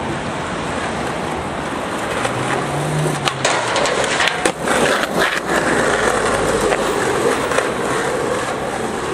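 Skateboard wheels rolling on pavement, then, about three seconds in, a cluster of sharp clacks as the board pops onto a bus bench, grinds along it on both trucks in a 50-50 grind, and lands. Rolling continues afterwards.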